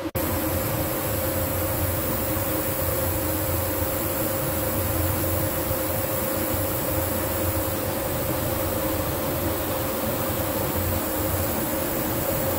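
A steady machine hum with a constant buzzing tone and a high hiss, unchanging throughout.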